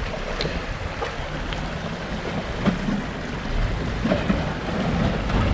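Jeep Wrangler crawling slowly over a rocky creek bed: a low, steady engine rumble mixed with wind noise on the microphone, and a few faint clicks.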